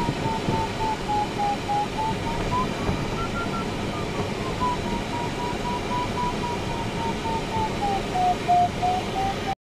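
Steady rush of air inside a glider's cockpit. Over it runs the electronic variometer's beeping tone, sliding up and down in pitch as the glider climbs in a thermal: highest about three seconds in and lowest near the end. The sound cuts off suddenly just before the end.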